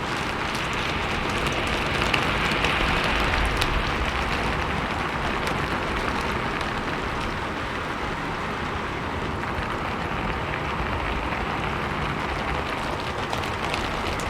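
Rain falling steadily on a rooftop: a continuous patter with scattered sharper drop ticks, swelling a little a few seconds in.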